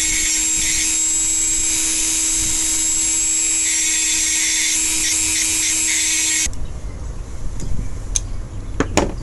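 Dremel rotary tool running at a steady high speed, shaving wood from the broken table leg so the piece will fit. It cuts off suddenly about six and a half seconds in, followed by a few light knocks.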